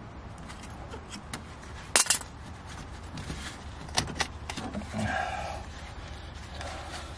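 Pliers and a metal hose clamp clicking and clinking as the clamp is worked off the hose on an EVAP canister close valve. There is one sharp snap about two seconds in, two more clicks about four seconds in, and handling rustle in between.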